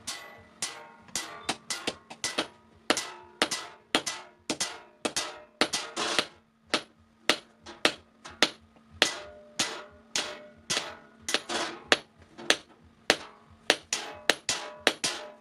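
Blacksmith's hammer striking steel on an anvil in a quick, uneven run of blows, about two to three a second with short pauses, each blow ringing briefly: forging a sickle blade by hand.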